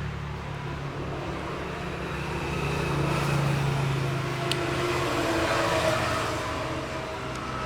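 Street traffic: a motor vehicle's engine hum that swells and fades, over a background of road noise. A single sharp click comes about halfway through.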